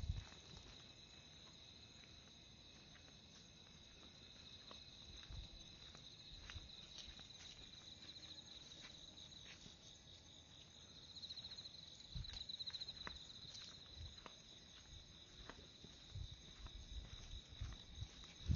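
Insects chirring steadily in a high, even trill, with a few soft footsteps and light clicks here and there.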